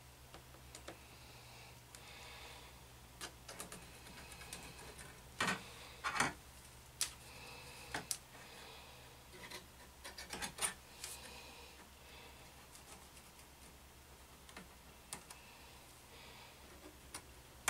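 Hobby knife trimming excess FEP film from a resin printer vat frame and the film being handled: scattered faint clicks and short scraping sounds, with a few sharper clicks midway.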